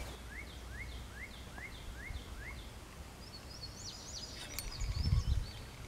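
Songbirds calling: a series of about seven short rising whistled notes, around three a second, then a higher, busier twittering phrase about three seconds in. A steady low rumble and a few low bumps near the end sit underneath.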